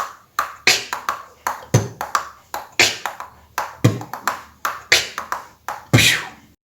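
Beatboxed beat: a deep kick-drum bass hit about every two seconds, with quick sharp clicks of the teeth snapped together filling the rhythm between them.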